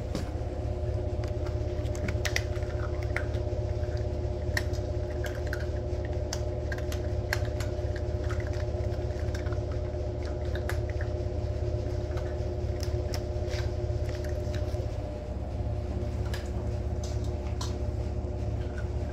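Collie puppies crunching and chewing hard dry puppy kibble and knocking it about a stainless steel bowl, many small crunches and clicks in an irregular stream. A steady low hum runs underneath.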